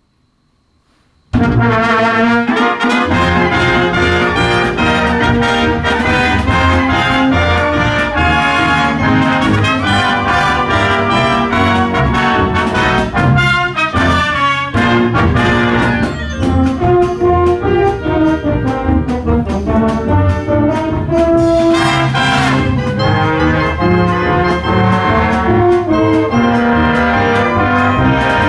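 School wind band playing a brass-led pop medley arrangement, the full band with trumpets and trombones to the fore. It comes in suddenly at full volume about a second in, after near silence, and plays on loudly.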